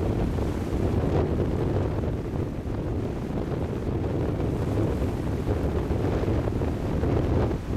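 Wind buffeting the camera microphone as a steady low rumble, over small waves washing gently onto a sandy shore.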